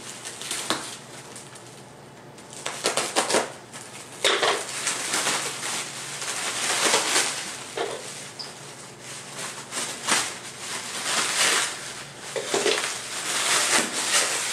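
Cellophane and bubble wrap crinkling and tearing in irregular bursts as the plastic is cut and pulled off a wrapped wheel.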